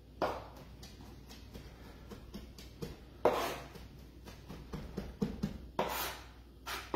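Kitchen knife chopping crayfish meat on a plastic chopping board: quick irregular taps of the blade on the board, with a few louder strokes.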